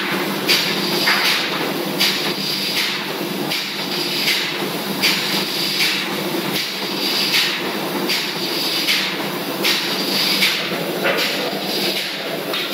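Steady machinery noise of a ship's engine room, with a low hum and a hissing band, cut through by short hissy pulses roughly every three-quarters of a second.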